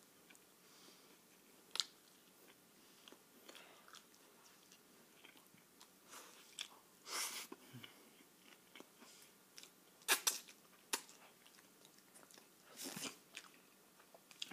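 A person chewing big mouthfuls of pizza, with scattered sharp clicks and short noisy bursts. The loudest cluster comes about ten seconds in.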